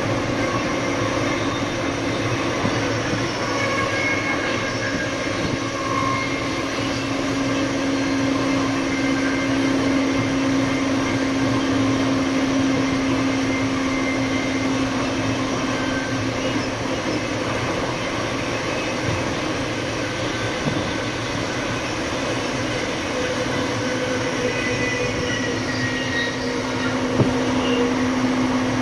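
Siemens Charger diesel-electric locomotive running, its Cummins QSK95 diesel engine holding a steady low hum over train running noise. The hum weakens about two-thirds of the way through and comes back strongly near the end.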